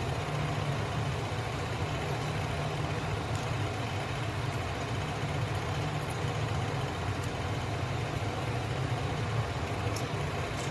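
Steady low mechanical hum, like a motor running, with a few faint small clicks.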